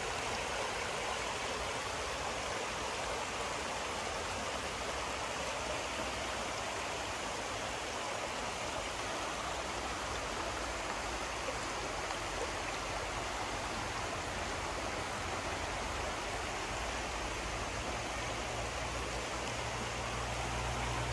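River water running over riffles: a steady, even rushing.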